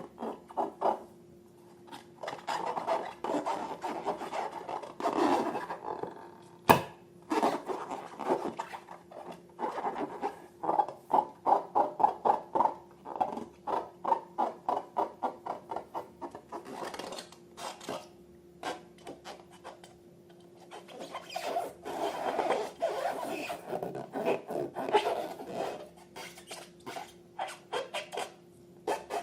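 Slime being squished and worked, making runs of quick sticky clicks and crackles with short pauses between, and one sharp snap about seven seconds in.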